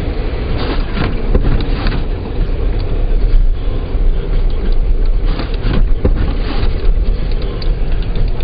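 Car driving on a snowy road, heard from inside the cabin: a steady loud low rumble with scattered short knocks.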